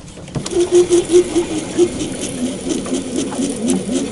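Fishing reel being cranked fast to take up line on a catfish that has taken the bait: a rhythmic whirring hum with light clicks, a few handle turns a second, dropping a little in pitch about two seconds in.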